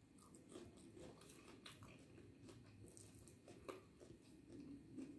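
Faint chewing and mouth sounds of a person eating rice and curry by hand, with many small scattered clicks; fingers work the rice on the plate near the end.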